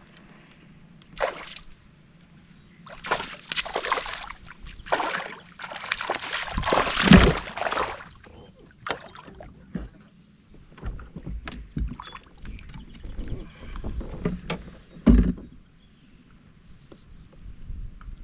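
Water splashing and knocks against a kayak, in irregular bursts. The loudest splashing comes about six to eight seconds in, and there is a sharp knock about fifteen seconds in.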